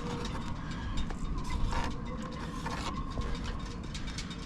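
A pen scraping along the edge of a held panel as its top edge is marked, with scattered small taps and handling clicks.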